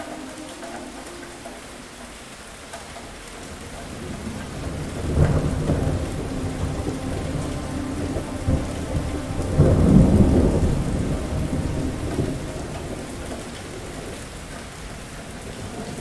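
Thunderstorm: steady rain with a long roll of thunder. The rumble builds about four seconds in with a first jolt near five seconds, swells to its loudest about ten seconds in, then rolls away, leaving the rain.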